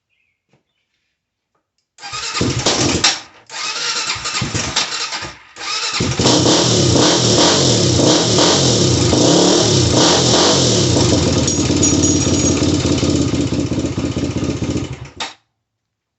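2000 Honda 400EX ATV's single-cylinder four-stroke engine starting about two seconds in, stumbling twice before it keeps running, then revving up and down before it shuts off near the end. It starts and runs on a freshly replaced spark plug after having died.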